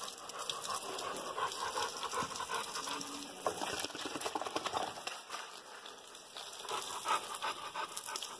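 Water spattering and dripping onto a wet tiled floor around a pit bull-type dog that is being doused with water, with the dog panting.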